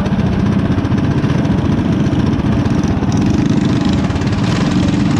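Small single-cylinder mini bike engines idling steadily, close and loud, with a fast, even low chugging.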